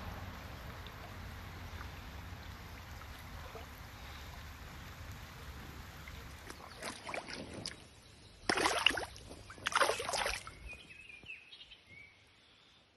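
River water swishing and splashing as someone wades through the shallows, over a steady hiss of moving water and wind. There are a few splashes, two of them loud and close together about two-thirds of the way through.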